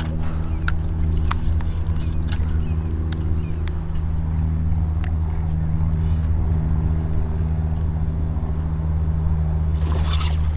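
A steady low engine hum, with a few faint clicks over it and a short rush of noise near the end.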